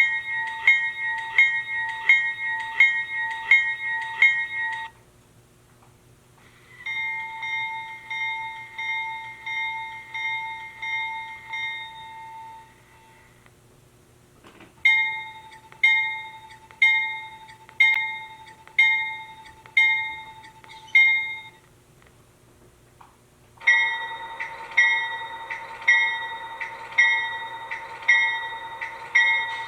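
Recorded GE-style steel locomotive bells ringing through a LokSound model-locomotive decoder's small speaker. Four separate bell recordings play in turn, each a few seconds of steady, evenly spaced strokes at about two a second, with short pauses between them.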